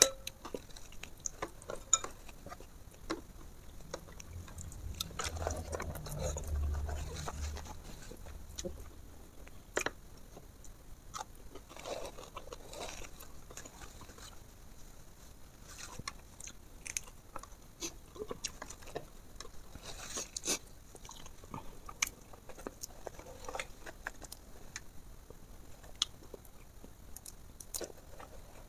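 A person eating fried fish and rice by hand, close to a clip-on microphone: chewing and wet mouth sounds with many scattered sharp clicks, and a low rumble about five seconds in.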